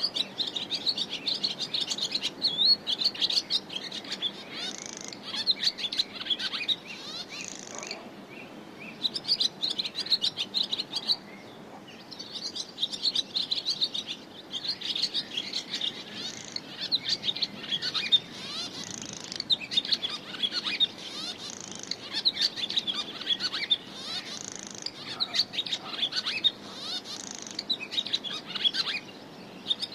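Many small birds chirping rapidly and overlapping in a dense chorus, thinning out for a few seconds about a third of the way in.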